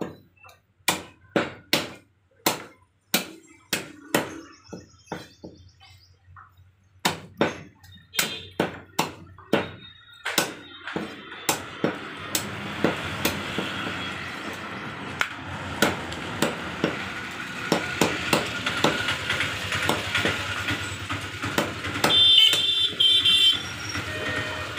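Butcher's cleaver chopping a rooster into pieces on a wooden stump block: repeated sharp knocks about two a second, with a short pause about six seconds in. From about halfway, a steady background noise rises under the chops.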